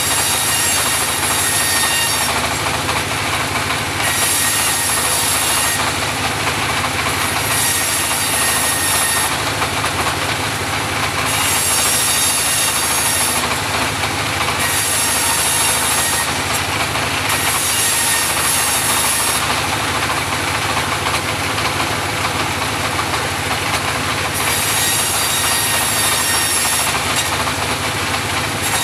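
Homemade portable bandsaw mill running steadily, with a high hiss that switches on and off every one to two seconds over the constant machine noise.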